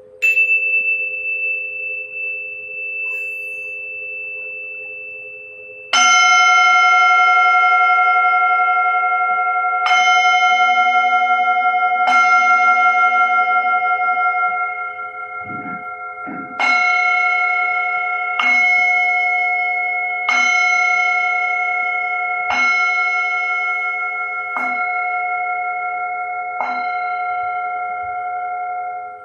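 Metal singing bowls, struck and ringing. A small high bowl is struck once at the start and rings on one clear tone. From about six seconds a larger bowl with several overtones is struck roughly every two seconds, each ring overlapping the next. A steady lower tone rings underneath throughout.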